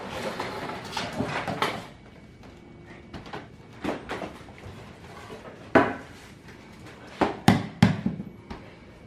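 Household furniture being knocked and shifted: scuffling and small bumps at first, then a few separate sharp knocks, the loudest a quick cluster near the end.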